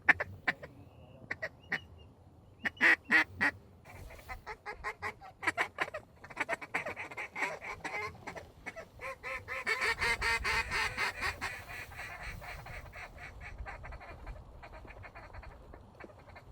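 Flock of ducks calling: many short, overlapping calls that grow into a dense chorus about ten seconds in, then thin out.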